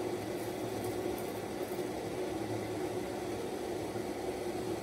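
A steady low hum, with the faint bubbling of sugar syrup boiling in a stainless steel saucepan and a few light pops in the first two seconds.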